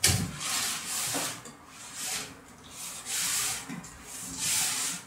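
Clear plastic air-cushion packaging rustling and rubbing against a cardboard TV box as it is slid out of the wrap, in a string of rustles about one a second. A sharp knock at the very start is the loudest sound.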